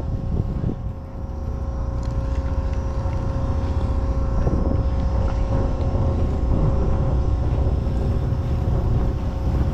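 An engine running steadily with a low drone and a steady hum, growing louder over the first few seconds and then holding even.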